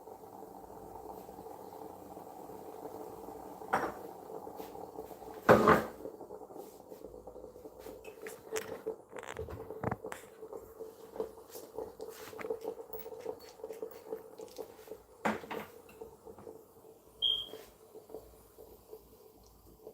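Kitchen handling sounds: a cupboard door and dishes being knocked and set down. There are a dozen or so sharp knocks, the loudest about six seconds in, over a faint steady hum.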